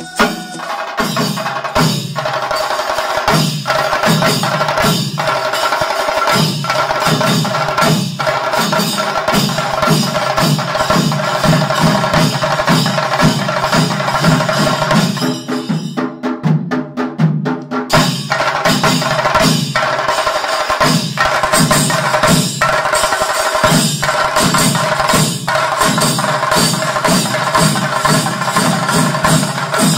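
Music with fast, dense drumming over steady held tones. For about two seconds just past the middle, the low drums drop out and only quick high taps remain.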